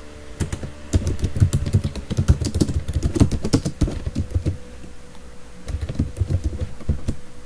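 Typing on a computer keyboard: rapid runs of keystrokes with short pauses between them, over a faint steady hum.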